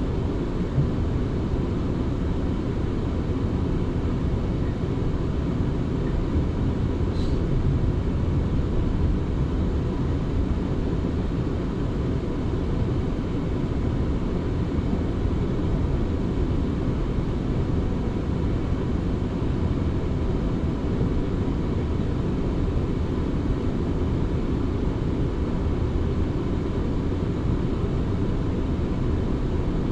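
South Western Railway electric train running at speed, heard from inside the carriage: a steady low rumble from wheels and running gear with a faint steady whine.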